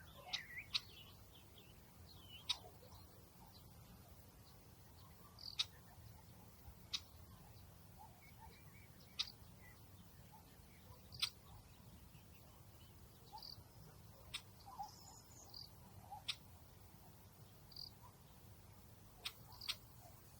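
Faint outdoor nature ambience: scattered short, high chirps and sharp ticks from small animals every second or two, over a quiet steady low background.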